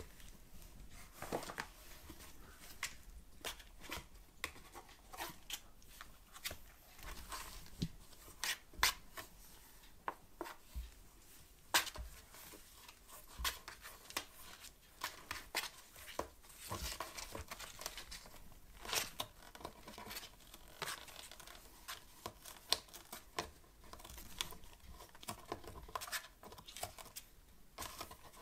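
Two kittens scrabbling inside a cardboard box: irregular scratching and scraping of claws on the cardboard, with scattered sharp knocks as they tumble against its sides.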